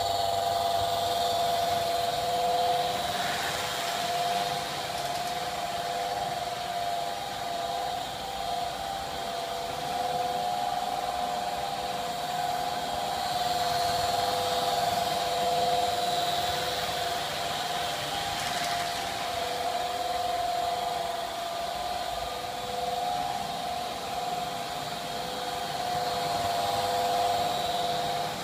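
American Flyer Northern Pacific Alco PA three-unit diesel set (490/491/493) starting up and running: a steady droning hum made of several held tones comes on suddenly at the start, with a fainter hiss above it.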